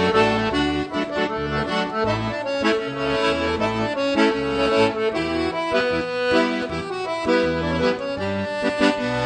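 Piano accordion playing a melodic instrumental passage over low bass notes in a steady, repeating rhythm.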